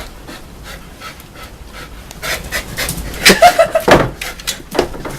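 Dog panting and licking peanut butter: quick, irregular wet tongue smacks, loudest about three to four seconds in.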